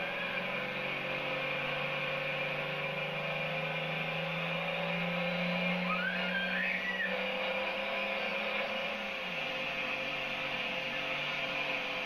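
Pro-stock pulling tractor's turbocharged diesel engine running with a steady drone that climbs slightly in pitch, then drops away about nine seconds in, under a constant hiss.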